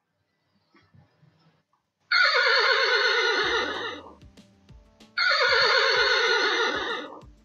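A horse neighing twice: two loud whinnies of about two seconds each, with a quavering pitch that falls away. The first comes about two seconds in and the second about three seconds later.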